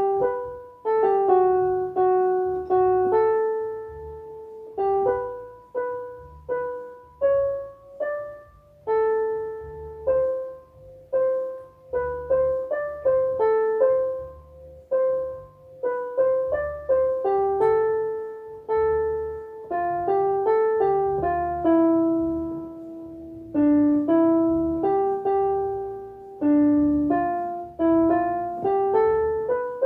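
Electronic keyboard (LP-6210C) played with a piano sound: a slow melody of single struck notes, each fading away, over low notes underneath.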